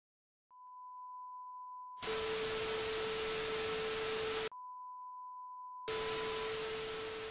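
Television colour-bar test tone: a steady high-pitched sine beep begins about half a second in. Twice it is swamped by loud bursts of TV static hiss, each carrying a lower steady tone and lasting a couple of seconds, with the beep alone again between them.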